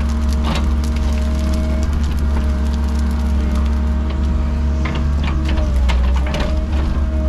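Cat 306 mini excavator's diesel engine running steadily, with scattered sharp cracks and snaps of wood. The engine note sags briefly about six seconds in.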